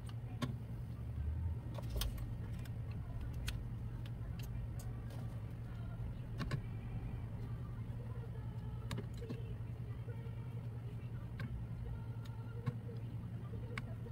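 Scattered small clicks and taps of tools and metal parts being handled while an audio equaliser is taken apart, over a steady low hum.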